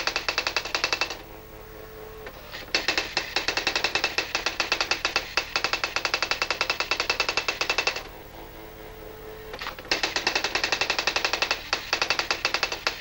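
Robotron Erika S 3004 daisy-wheel electronic typewriter printing in rapid, even strikes, about ten a second. It breaks off twice for about a second and a half, leaving a faint steady hum.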